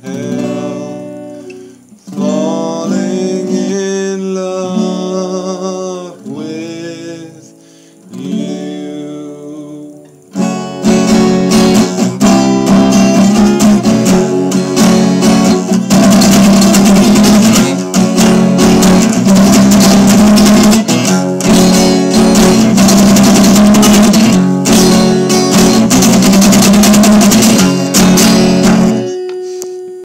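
A man singing slow, drawn-out notes over an acoustic guitar, then loud, fast strummed acoustic guitar chords from about ten seconds in. The strumming stops shortly before the end, leaving one note ringing.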